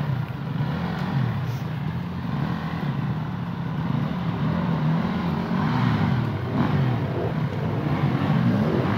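Several enduro dirt-bike engines revving unevenly under load on a steep climb, their pitch rising and falling all the time and overlapping. The engines get louder toward the end.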